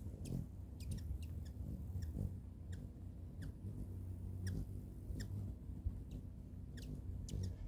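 Hummingbirds giving short, high, squeaky chip calls: about a dozen sharp notes, each sliding down in pitch, scattered irregularly, over a steady low hum.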